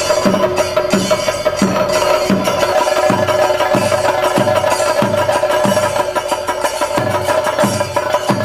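Traditional Kerala ritual percussion accompanying a Mudiyettu performance: deep drum strokes a little under two a second, each falling in pitch, over a steady high ringing tone.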